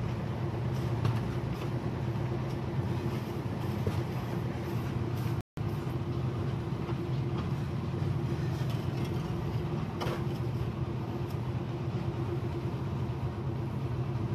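Steady low engine drone with a constant hum, from a running motor or vehicle engine, with a few faint knocks of bricks being handled.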